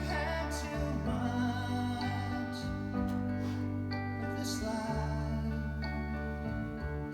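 A slow, gentle recorded song playing, with long held low notes under a singing voice.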